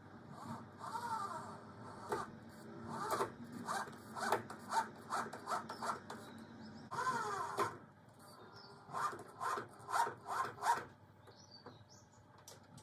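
Power drill driving screws into the timber pergola beam in a run of short trigger bursts, the motor pitch rising and falling with each burst.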